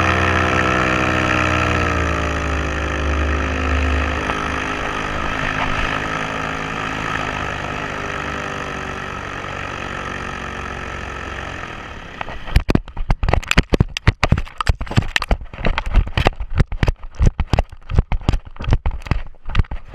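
Paramotor engine running, its pitch falling about two seconds in as it is throttled back, then running lower and quieter until it stops about twelve seconds in. After that comes a rapid, irregular series of sharp thumps.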